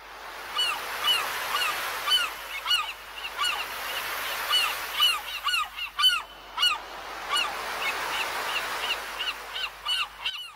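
A flock of birds calling: many short calls that rise and fall in pitch, a couple each second, over a steady hiss. It cuts off near the end.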